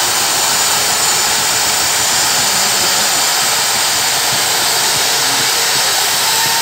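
Inflatable life raft's compressed-gas inflation system hissing loudly and steadily as the raft finishes inflating.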